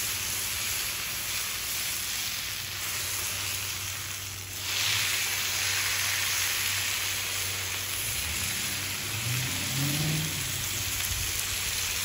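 Bacon-wrapped meatloaf sizzling on a hot Blackstone flat-top griddle, turned out of its loaf pan onto the griddle. The sizzle is steady and gets louder about four and a half seconds in.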